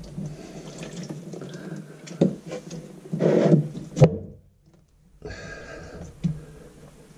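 Water running and dripping out of a loosened bathroom sink P-trap into a plastic tub below, swelling briefly about three seconds in. Knocks of the metal drain pipes being handled and pulled apart, the loudest about four seconds in.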